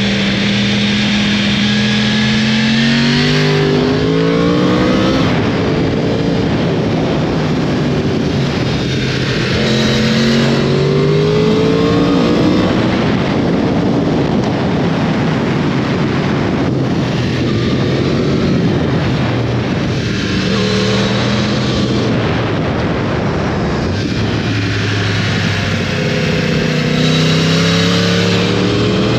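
2012 Yamaha YZF-R1's crossplane inline-four engine revving up hard, backing off and pulling up again several times, over a constant rush of wind noise.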